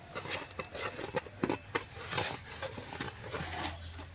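Hands rubbing and mixing puffed water lily seeds (dhyaper khoi) into hot, sticky jaggery: an irregular rustle with many small clicks.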